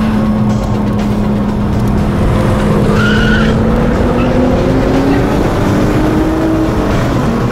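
Car engine pulling under load, its pitch rising slowly and steadily, then dropping near the end as it comes off the throttle. A brief high squeal comes about three seconds in.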